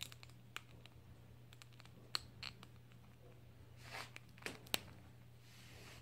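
Grey squirrel handling a thin wooden stick on a towel: scattered small clicks and short scratchy rustles. The sharpest clicks come about two seconds in and again near the five-second mark, over a faint steady low hum.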